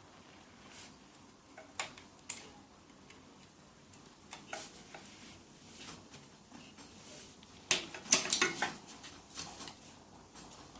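Metal hand tools and engine parts clinking and clattering during engine disassembly: scattered light clicks, with a louder burst of clatter about eight seconds in.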